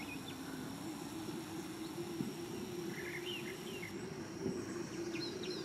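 Faint outdoor ambience: a steady high insect drone under a low steady hum, with a few short bird chirps about halfway through and again near the end.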